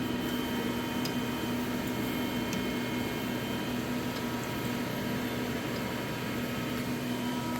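Steady machine hum with a faint whine from the powered-on DTF roll-film printer's suction (absorption) fan and heater, with a few faint ticks.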